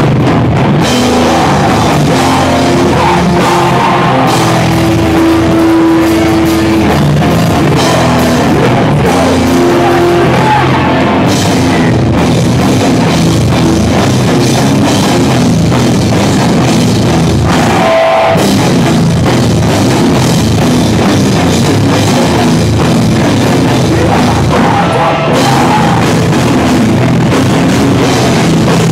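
Hardcore punk band playing a song live, loud, with electric guitars and a drum kit.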